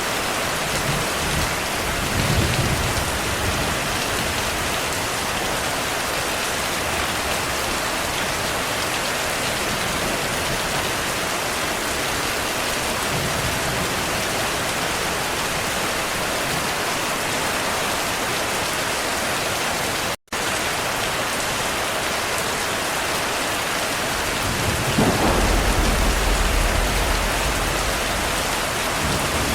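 Steady rain with thunder: a short low rumble about two seconds in, and a longer, louder roll of thunder near the end. The sound cuts out for an instant about two-thirds of the way through.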